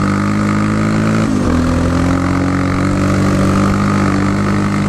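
Yamaha Raptor 700 quad's single-cylinder four-stroke engine running hard at speed. The revs dip briefly about a second in, then hold steady.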